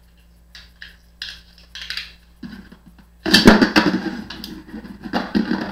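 A launched Beyblade spinning top clattering and scraping against the hard plastic walls and floor of a Destroyer Dome stadium. The loud, dense rattle starts suddenly a bit past three seconds in, after a few short scraping clicks.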